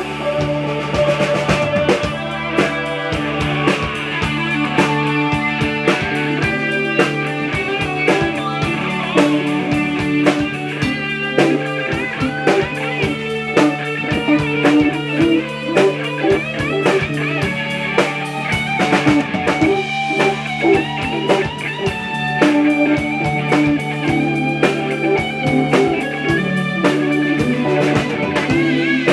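Rock music: electric guitar over a steady drum kit beat.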